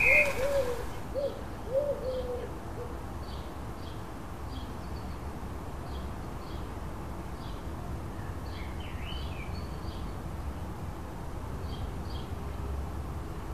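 A pigeon cooing: a phrase of several low coos that ends about two seconds in. After that, faint short high chirps of small birds come on and off over a low steady background rumble.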